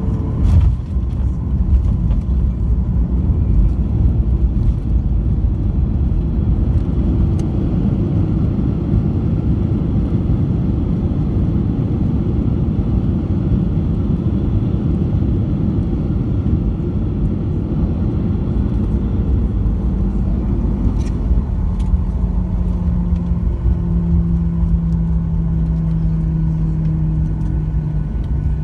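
Cabin noise of a Boeing 737-900 rolling on the ground after landing: a steady low rumble from the engines and the wheels on the pavement. There is a brief knock about half a second in, and a low steady hum joins about two-thirds of the way through, dipping slightly in pitch near the end.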